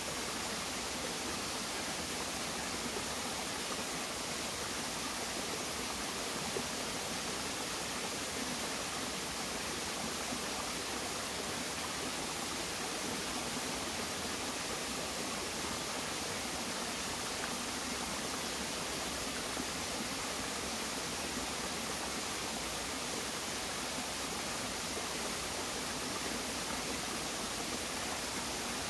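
Shallow forest stream flowing over rocks in small cascades: a steady, even rush of water.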